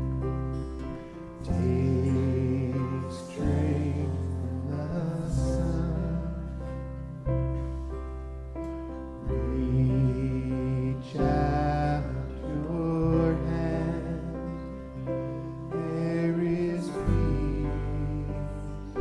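Live band leading a slow sung chant, voices singing over sustained bass notes that change about every two seconds.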